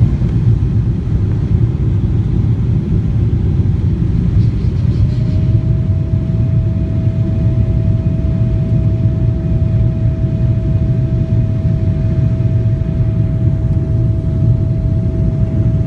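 Jet airliner heard from inside the cabin after take-off: a steady low rumble. About five seconds in, a whine rises and then holds at one steady pitch.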